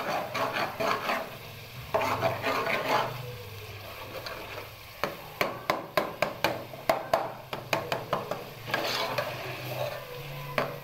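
A steel spoon stirring and mashing baingan bharta in a metal pot, scraping through the thick eggplant mash and knocking against the pot's sides and bottom in quick repeated clicks, with a light sizzle of the masala frying in its separated oil.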